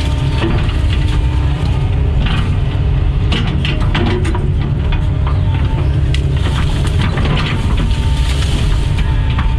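Doosan DX140 excavator's diesel engine running under load, heard from the cab, with repeated cracking and crunching of wood as the bucket and thumb grip and break up tree limbs and brush.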